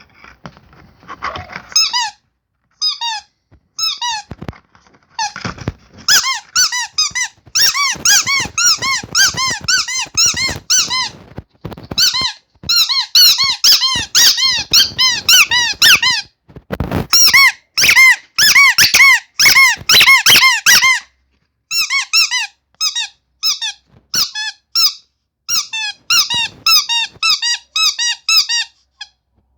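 Rubber carrot squeaky toy squeezed over and over, giving short squeaks that rise and fall in pitch. They come in fast runs of about four a second, broken by brief pauses, and are sparser at the start and end.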